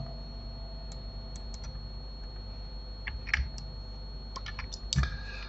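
Computer keyboard keys and clicks, scattered: a few about a second in, a couple around three seconds, and a quick run of them near the end, over a faint steady hum.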